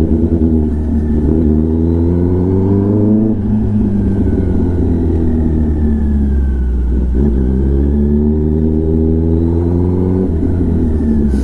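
Kawasaki ZX-10R inline-four engine through an SC-Project titanium exhaust, heard from the bike while riding. The revs climb twice under throttle, from about a second in and again from about seven seconds in, and each time drop away.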